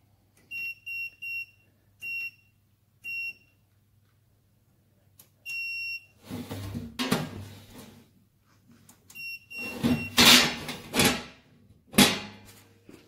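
Electronic beeper of a coin-operated toilet turnstile's controller giving short, high beeps as its price setting is keyed to 25 kuruş: three quick beeps, two single ones, then one longer beep. After that comes irregular clattering and knocking from the turnstile being handled, with two more short beeps and a sharp knock near the end.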